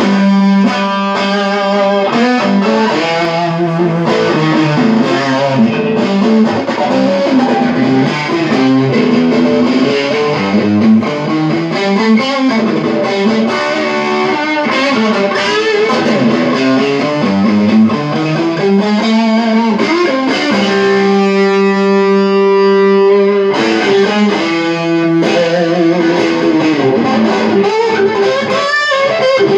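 Electric guitar played through a Mesa/Boogie Fillmore tube amplifier: a lead line of single notes with string bends and vibrato, including one long held note about two-thirds of the way through.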